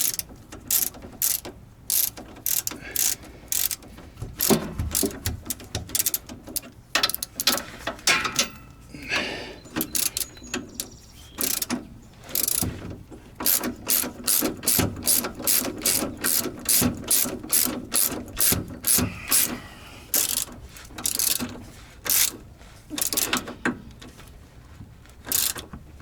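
Ratchet wrench clicking stroke after stroke, about one or two sharp clicks a second in uneven runs, as a bolt on a car's rear shock absorber mount is run down and tightened. There is a rougher scraping stretch in the middle.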